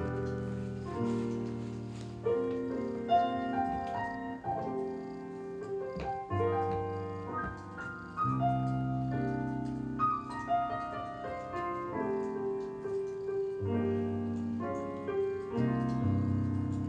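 Slow background piano music, with notes and chords held for a second or two before the next.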